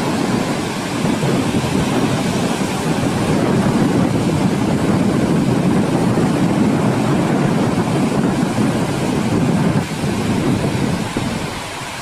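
Waves breaking on a sandy beach: a steady, loud rush of surf.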